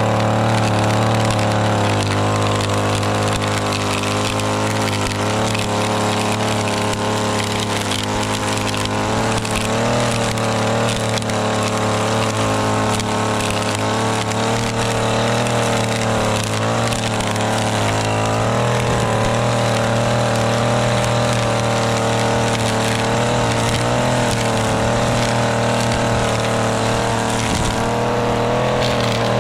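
Stick edger's small engine running steadily at high speed, its blade cutting a bed edge through soil and turf with an uneven gritty crackle.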